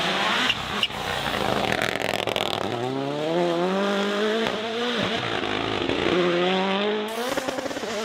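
Rally car at full throttle out of a corner, its engine note climbing and dropping back at each of several quick upshifts, over a rush of tyre and loose-surface noise in the first couple of seconds.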